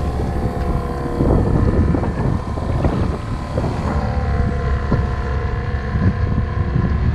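9.9 hp outboard motor running steadily, pushing the sailboat along, with wind buffeting the microphone in gusts.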